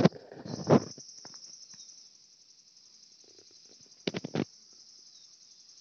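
Steady high-pitched insect chorus that starts about half a second in and holds. Loud short thumps and rustles come near the start and again about four seconds in.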